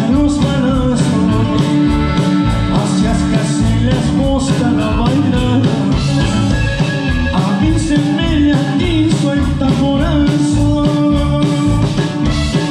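Norteño band playing live: button accordion, acoustic guitar, electric bass and drum kit, with a steady drumbeat under the accordion's held notes.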